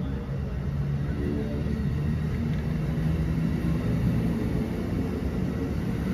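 Amtrak Northeast Regional Amfleet passenger cars rolling past the platform, a steady low rumble of steel wheels on rail.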